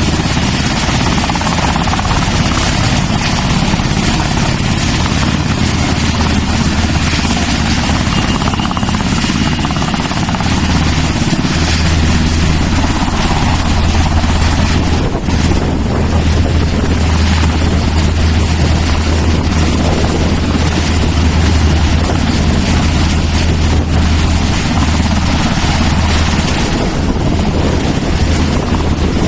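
Helicopter running: loud, steady rotor and engine noise with a strong low rumble.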